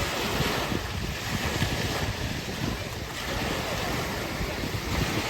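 Ocean surf washing onto a beach, rising and falling in swells, with wind buffeting the microphone.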